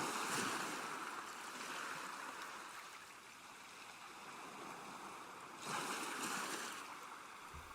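Flowing water, a steady rushing wash that swells louder at the start and again about six seconds in.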